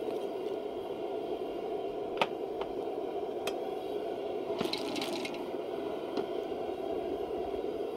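Propane burner running steadily under a full stockpot of clams and mussels. A few sharp clicks of shells and metal come through, and there is a short scraping rattle about five seconds in as the pot is gripped and shifted on the burner.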